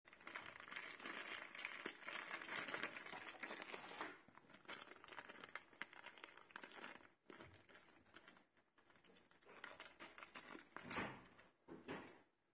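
Small clear zip-top plastic bag crinkling as it is handled and opened, with brief pauses and a louder crinkle near the end.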